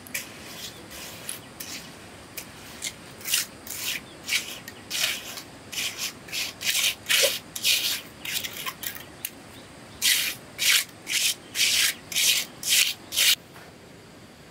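Steel hand trowel scraping and spreading wet cement mortar over stones in short, rasping strokes, irregular at first, then a quick run of about two strokes a second before it stops.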